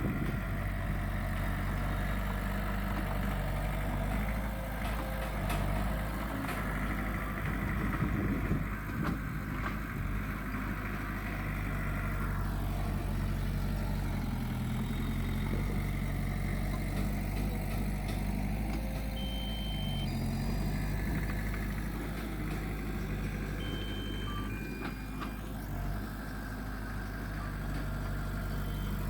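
Heavy diesel earthmoving machinery, a bulldozer and dump trucks, running steadily with a low engine drone. A few short high tones sound about two-thirds of the way through.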